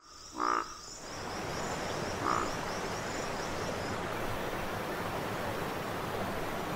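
Two short croaking animal calls, a louder one about half a second in and a fainter one about two seconds later, over a steady rushing noise that swells up in the first second. Faint high chirps repeat at an even pace in the background.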